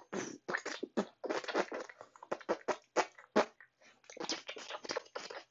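A boy beatboxing: quick, short percussive mouth sounds, clicks, puffs and hisses, in an uneven rhythm with brief gaps between them.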